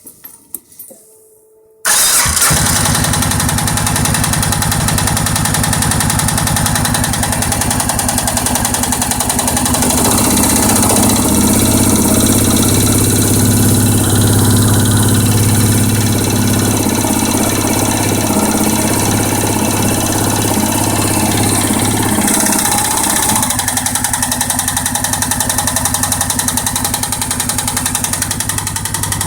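Suzuki King Quad 700 ATV's single-cylinder four-stroke engine starting about two seconds in and running with a knock from the top end that has appeared after a rebuild. It runs stronger for a stretch in the middle, then settles back to a steady idle.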